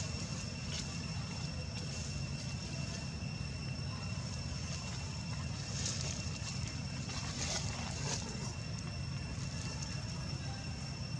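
Outdoor background of a steady low rumble with a thin, steady high-pitched tone over it, and brief rustles of dry leaves about six and seven and a half seconds in as macaques shift about.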